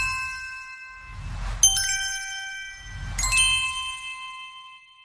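Logo sting sound effect: bright chime dings, each over a low whooshing rumble. A ding is ringing at the start, a new one comes about a second and a half in and another about three seconds in, and the last rings out and fades away near the end.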